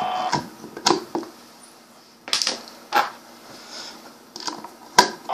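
Scattered clicks and knocks of handling as an antenna is taken off the BNC connector of a Uniden UBC125XLT handheld scanner and a D881 antenna is fitted in its place. The loudest knock comes near the end.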